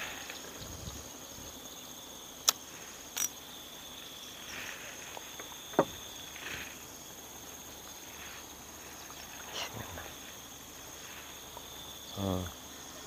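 Insects droning steadily with a high, even tone, broken by three sharp clicks in the first half and a short low sound near the end.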